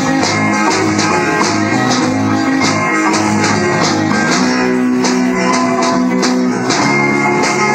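Rock band playing an instrumental passage: electric guitars over bass and drums, with a steady beat of sharp cymbal hits. A lo-fi rehearsal recording from a cheap cassette tape deck, dull in the top end.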